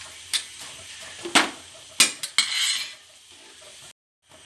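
Stirring and tossing in a frying pan of sautéed vegetables and egg as noodles go in: a spatula knocks against the pan several times over a light sizzle. The sound cuts out suddenly for a moment near the end.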